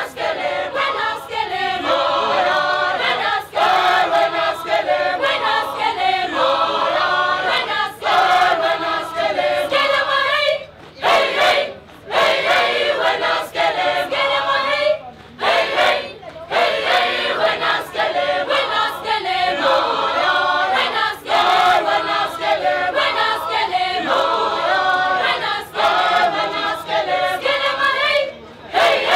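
A choir singing a song, with a few brief breaks between phrases.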